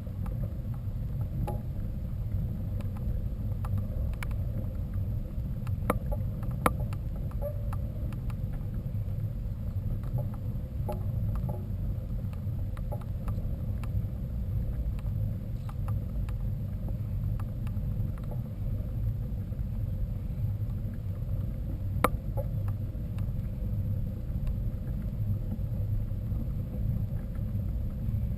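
Steady low rumble of a mountain bike ride picked up by a bike-mounted or handheld camera, wind and tyre noise, with a few sharp clicks and knocks from the bike rattling, the loudest about six seconds in and again near twenty-two seconds.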